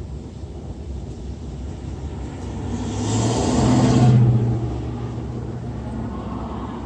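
A car passing by on the road, its engine and tyre noise swelling to a peak about four seconds in and then fading, over a steady low rumble.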